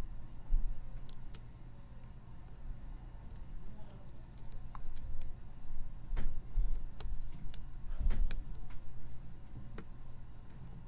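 Lock pick clicking and scraping against the pins inside a Wilka pin-tumbler lock held under tension, with irregular sharp clicks as pins are lifted and set.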